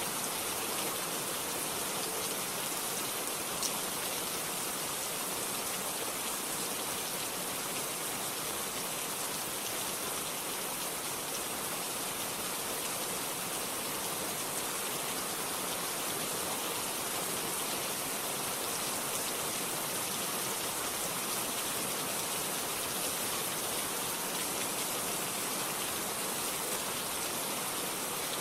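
Steady rain falling, an even hiss of many drops on surfaces, without thunder.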